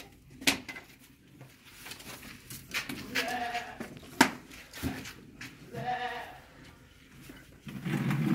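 Firewood sticks being handled, giving a few sharp wooden knocks. Two short pitched calls of about half a second each fall between the knocks.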